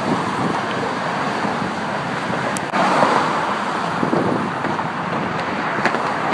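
Steady road traffic: cars passing on the bridge roadway just beside the walkway. It breaks off for an instant near the middle and comes back a little louder.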